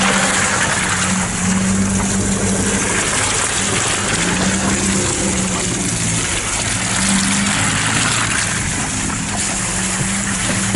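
Classic Fiat Panda 4x4 engine running at low speed as the car crawls along a muddy track, its steady hum dipping and returning over a constant hiss.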